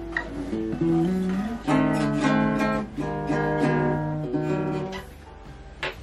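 Ibanez GA35TCE nylon-string classical guitar played with the fingers: plucked bass notes and melody with several fuller chords struck about two and three seconds in. The playing grows quieter near the end, followed by a short click.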